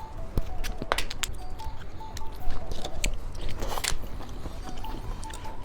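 Close-up biting and chewing of small hard candies, with an irregular series of sharp crunches and cracks.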